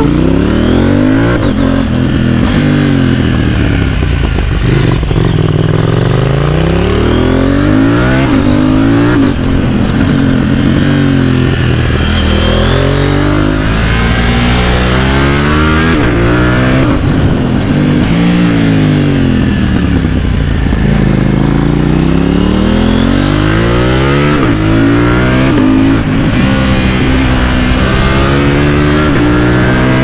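KTM Duke 790's parallel-twin engine through an aftermarket Austin Racing exhaust, revving hard under acceleration. The pitch climbs and drops at each gearshift, then falls away and climbs again several times as the bike slows and speeds up.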